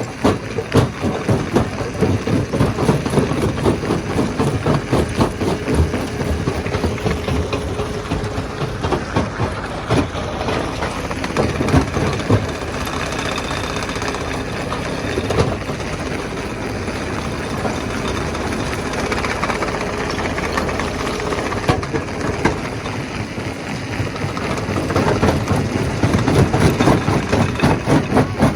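Stone crusher machinery running: a steady mechanical engine-like noise with a fast pulsing beat, which eases in the middle and grows stronger again near the end.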